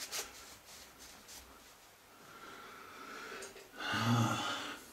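A few faint clicks at first, then about four seconds in a short breathy sound from a person, a low hum with hiss, like a snort or heavy exhale.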